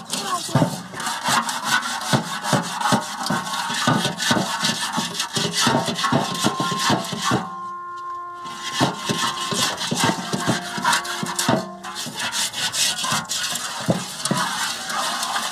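Hands scrubbing the inside of a large basin in quick, repeated scraping strokes, with a short break a little under halfway through.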